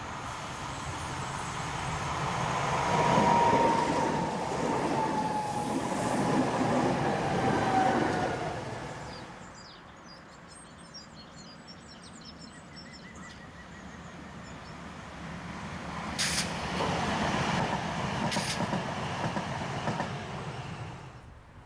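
Alstom Citadis Dualis tram-train passing close by on the rails, its running noise swelling with a whine that falls in pitch as it goes past. After a cut, a second tram-train run builds up again, with two short sharp hisses, and fades near the end.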